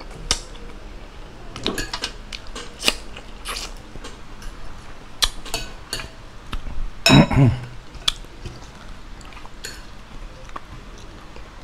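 Fingers picking and scraping the last rice grains off a metal plate, with scattered small clicks and taps against the plate, mixed with chewing and lip smacks from eating by hand. One louder, voice-like sound comes about seven seconds in.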